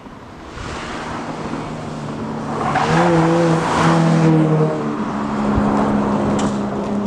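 A car driving past at speed through a bend: its engine and tyre noise build up, are loudest about three to four seconds in as it passes, then fade slowly as it pulls away.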